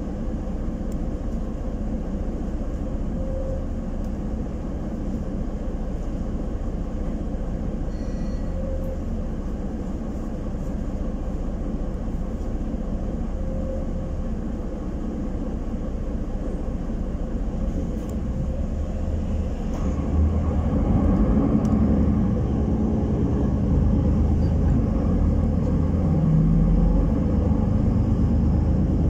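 Solaris Urbino 12 city bus heard from inside the cabin: a steady engine rumble while the bus stands still, then about twenty seconds in the engine and road noise grow louder as it drives on.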